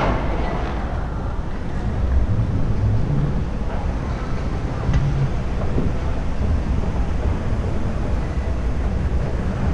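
Airport terminal background noise: a steady low rumble with a faint hubbub, heard on the move through the concourse.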